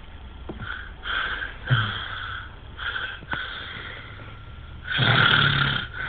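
A sleeping man snoring and gasping for breath: a run of short, ragged snores, then a louder, longer gasp near the end. This is the pattern of obstructive sleep apnea.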